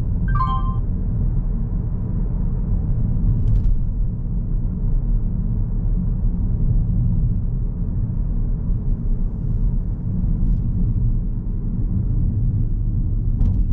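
Steady low road and engine rumble inside the cabin of a 2022 Mazda3 hatchback with a 2.0-litre SKYACTIV-G four-cylinder, driving. About half a second in, a short chime of a few falling notes.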